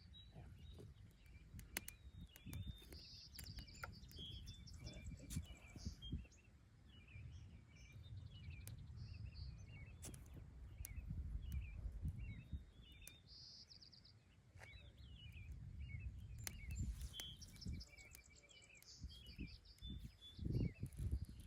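Small birds chirping and trilling repeatedly over a steady low outdoor rumble, with a few dull knocks near the end.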